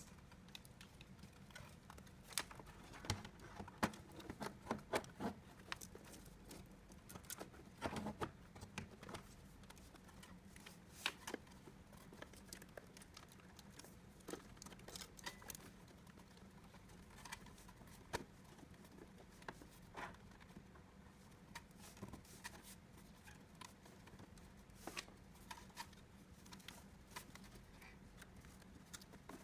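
Scattered light clicks and taps of small plastic and metal parts being handled, busiest in the first several seconds, over a faint steady low hum.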